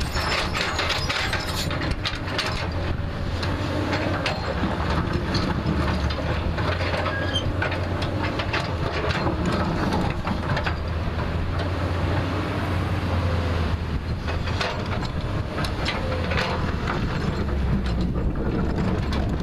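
JCB backhoe loader's diesel engine running steadily under load, with frequent clanks, knocks and scrapes from the bucket digging into the hillside.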